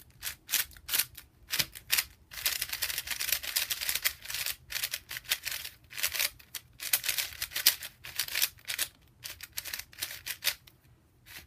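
Plastic clicking and scraping of a MoYu mini AoSu 4x4 speedcube being turned fast in quick bursts of turns with short pauses, outer and inner layers sliding against each other. The new cube is still tight.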